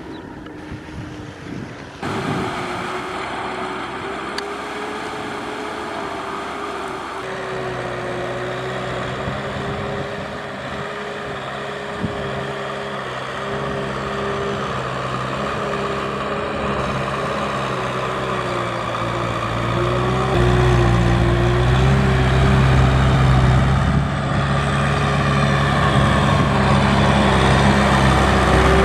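Kubota M6040 tractor's diesel engine running steadily as it tows a trailer along a muddy track, getting louder in the last third, with a steady hum over it.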